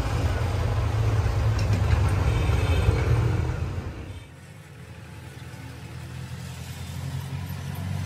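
An engine running with a steady low hum that drops much quieter about four seconds in, with a fainter hum carrying on.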